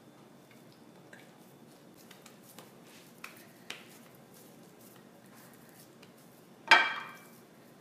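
Quiet kitchen handling sounds of potato-and-chana-dal tikkis being shaped by hand, with a few light ticks, then one sharp clink of crockery that rings briefly near the end.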